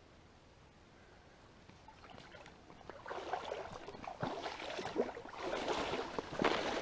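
A faint trickle of stream water, then from about three seconds in close scuffing and knocking noises that grow louder toward the end, from someone moving about at the water's edge.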